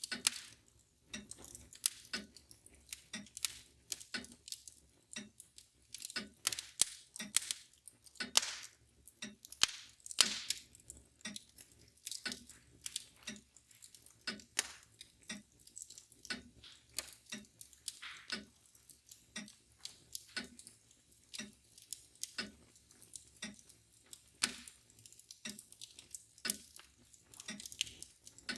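Wood fire crackling and popping at irregular moments, a few pops louder than the rest, with a mantel clock ticking steadily about once a second underneath.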